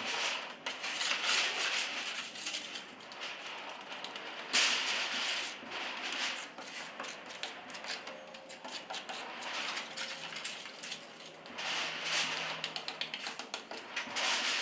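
A hand tool scraping and clicking on a surface while spreading cement, in irregular strokes, with one sharper loud scrape about four and a half seconds in.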